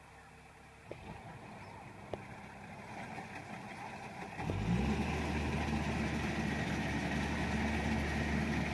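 Kubota DC-70 combine harvester's diesel engine running low and quiet, then about halfway through revving up with a rising pitch and holding steady at a much louder working speed.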